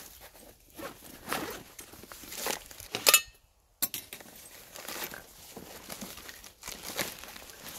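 A canvas backpack being opened and rummaged through: irregular rustling and scraping of fabric and packed gear, with one sharp click about three seconds in, followed by a brief drop to near silence.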